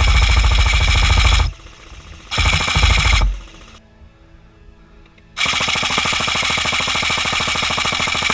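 Krytac Kriss Vector airsoft electric gun (AEG) firing three full-auto bursts: two of about a second each and a longer one of about three seconds near the end. Each burst is a fast, even rattle of shots over a steady motor whine.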